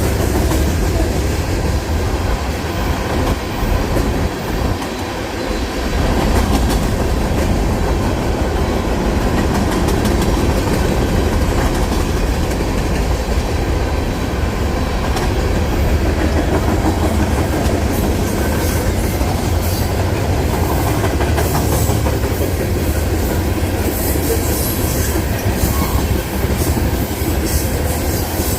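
Union Pacific train's cars rolling past on the rails, a steady loud rumble with a run of sharp clicks in the second half.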